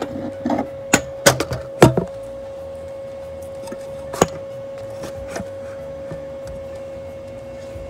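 Several knocks and clatters of a phone camera being handled and set down on a kitchen counter in the first two seconds, one more knock about four seconds in, over a steady hum.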